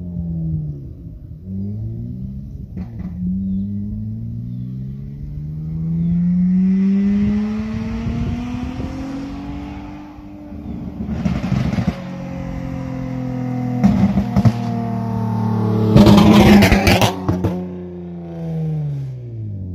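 2009 Honda Accord coupe's 3.5-litre V6 with a straight-piped exhaust, electric cutout open, making full-throttle passes. The engine note climbs as it accelerates, is loudest and raspiest as the car goes by close about three-quarters of the way in, and drops sharply in pitch as it passes, once near the start and again at the end.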